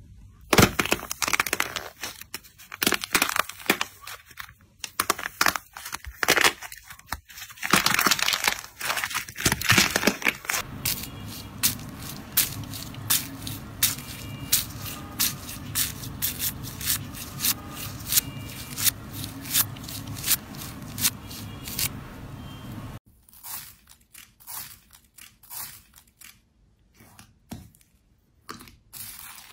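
Slime being squeezed and pressed by hand, a run of crackles and pops. In the middle stretch, fingers pushing through slime topped with small foam beads give regular crunchy clicks over a steady low hum. The sound changes abruptly twice, about ten seconds in and again near the end.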